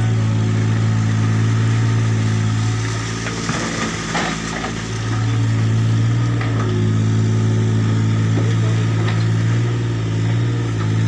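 Tata Hitachi mini excavator's diesel engine running steadily with a low hum while the boom and bucket work. About four seconds in the hum weakens briefly amid some clattering, then steadies again.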